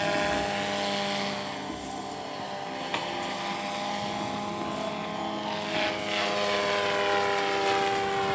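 Radio-controlled scale model helicopter flying, its rotor and drive making a steady whine of several held tones. The tones shift slightly in pitch about five to six seconds in as the helicopter moves past.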